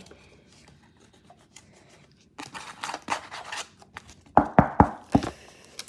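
Kitchen containers and utensils being handled: a scraping rustle about halfway through, then four sharp knocks in quick succession near the end, which are the loudest sounds.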